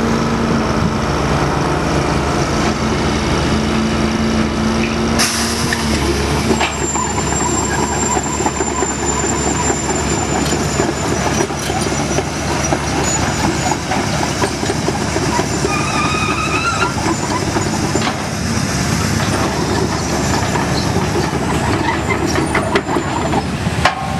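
2006 Komatsu PC160LC-7KA excavator's turbo diesel engine running steadily. About five seconds in, the sound turns into a continuous dense rattling clatter as the machine works.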